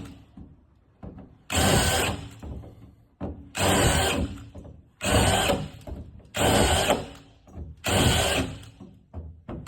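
Power drill working holes in the sheet-metal slider door of a Ram ProMaster van, run in five short bursts of about a second each with brief pauses between.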